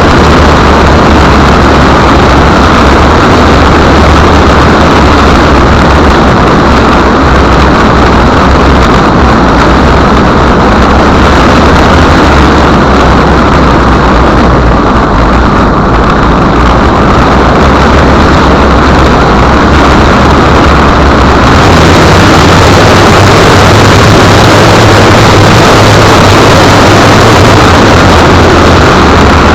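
Land Rover Discovery engine and road noise heard from under the car, a loud, steady rush with a low engine hum. About two-thirds of the way through the engine note shifts up and the hiss grows louder.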